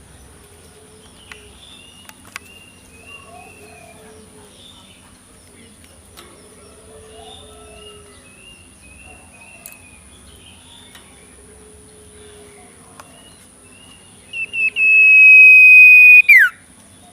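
Faint short bird chirps and calls over a low steady hum, then near the end a loud, steady high whistle held for about two seconds that drops sharply in pitch as it stops.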